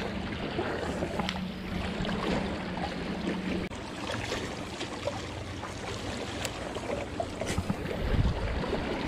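Small waves lapping against a rocky lakeshore, with a few light clicks. A steady low hum runs through the first few seconds and stops. Near the end there is a low buffet of wind on the microphone as the spinning rod is swung into a cast.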